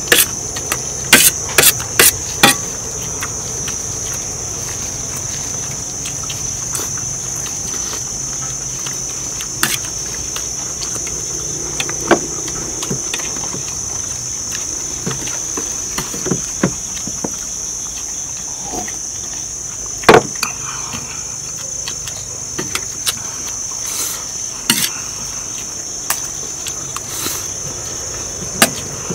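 Insects chirring steadily in one high band, with sharp clicks of metal spoons and forks on ceramic plates scattered over it. The clicks come in a quick run at the start, then one or two every few seconds, the loudest about twenty seconds in.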